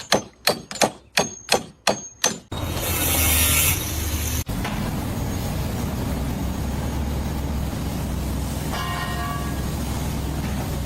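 Rapid metallic knocks, about three a second, each with a high ring, stop suddenly about two and a half seconds in. A loud hissing noise follows, then a steady low rumble of heavy machinery.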